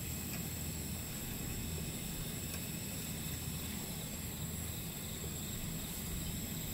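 Steady night ambience: a continuous high-pitched cricket trill over a low steady hiss, with a few faint light clicks.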